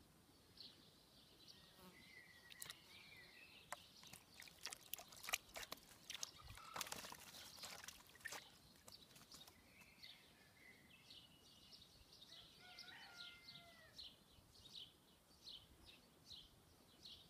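A young peregrine falcon bathing in a shallow tub of water, splashing in a burst about halfway through as it beats its wings in the water. Small birds chirp and whistle throughout, with a run of short, evenly repeated chirps in the second half.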